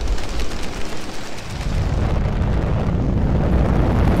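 Sound-designed rumble and rushing noise of a fireball streaking through the sky. It dips slightly about a second in, then builds steadily.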